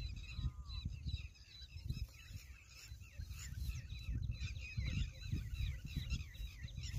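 Many small birds chirping and twittering continuously, a dense chorus of short high calls, over irregular low thumps and rumble on the microphone.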